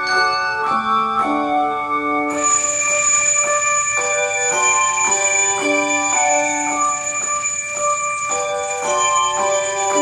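Handbells playing a Christmas hymn: a slow melody of struck, ringing notes that overlap as they sustain. A steady hiss comes in about two seconds in.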